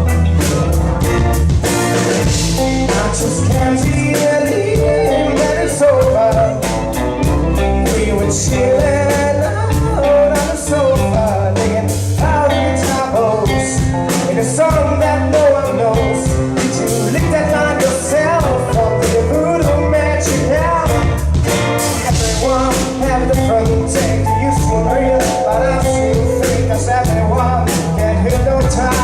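Live rock band playing a song with a steady drum-kit beat, bass and guitar, with a lead vocalist singing.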